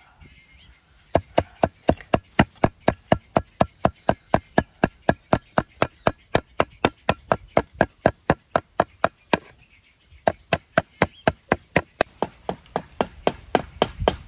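Cleaver chopping a prahok mix of fish paste, peanuts and herbs on a thick wooden chopping board: fast, even strokes about five a second, starting about a second in, with a short break about two-thirds through before the chopping resumes.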